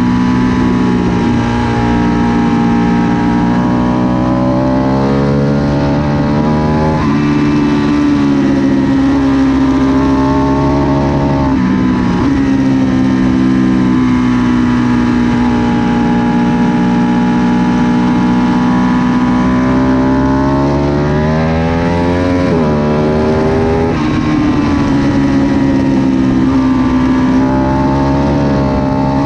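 Ducati Panigale 1199 S's Superquadro V-twin engine under hard acceleration on track. The revs climb and drop sharply with each gear change, several times over, with a long steady high-rev stretch in the middle.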